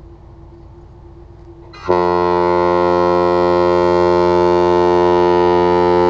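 Lake freighter's horn sounding one long, loud blast at a steady pitch, rich in overtones, starting about two seconds in. Before it, only a faint steady hum.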